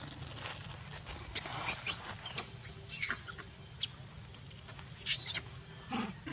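Long-tailed macaques giving short, high-pitched squeals and squeaks in several bouts: about a second and a half in, around three seconds, and near five seconds. A lower call falls in pitch near the end.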